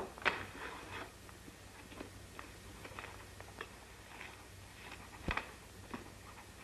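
Scattered light clicks and knocks at irregular intervals, one sharper knock about five seconds in, over the steady low hum of an old film soundtrack.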